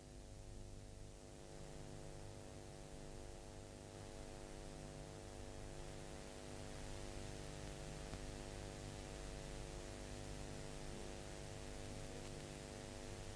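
Faint steady electrical mains hum over a layer of hiss, growing slightly louder over the stretch.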